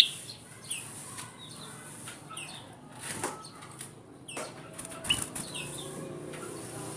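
Kutilang emas bulbul calling: a string of short, sharp chirps, the loudest right at the start, with scattered clicks over a steady high hiss.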